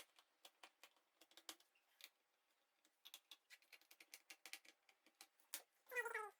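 Faint, irregular small clicks and ticks of a screwdriver and hands working the plastic bottom case of a laptop, refitting its screws. A brief falling tone sounds near the end.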